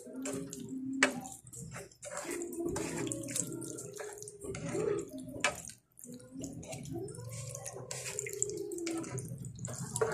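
A ladle stirring a thin creamy sauce in a pan: liquid sloshing, with sharp clicks of the ladle against the pan and a wavering tone behind it.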